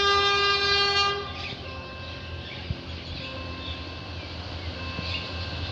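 Horn of an approaching GE UM12C diesel-electric locomotive sounding one long blast that cuts off about a second in. The low, steady rumble of the locomotive's diesel engine follows.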